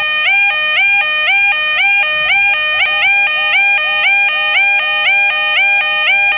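Electronic level crossing alarm sounding continuously: a loud pitched tone that steps up from a lower note to a higher one, repeating about two to three times a second.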